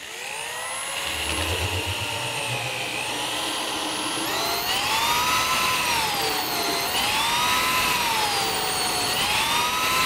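Electric drill spinning a 2.5-inch hole saw through a wooden desk top, cutting the last layer of a grommet hole. A steady motor whine and cutting rasp, its pitch wavering up and down about every two seconds from about four seconds in.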